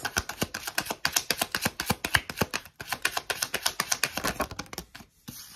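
A deck of oracle cards being shuffled by hand: a fast, uneven run of card clicks and flicks that stops shortly before the end.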